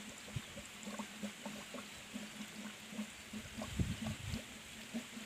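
Faint trickle and gurgle of water poured from a plastic jug into the rusty pipe of a diesel water pumpset, priming the pump before starting, with a few low bumps about four seconds in.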